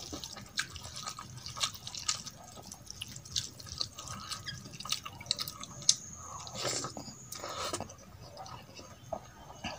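Wet, sticky clicks and squelches of fingers mixing cooked rice into masoor dal on a steel plate, irregular and close up. About two-thirds of the way in come longer mouth sounds as a handful is eaten.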